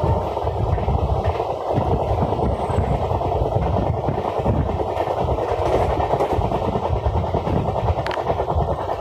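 Train running along the track: a steady, loud rumble of wheels on rails with rapid clatter.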